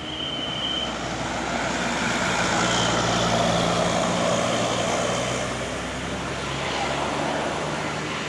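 A bus driving past, its engine and road noise swelling to a peak about three seconds in and then easing off. A high telolet horn note holds through the first second and stops.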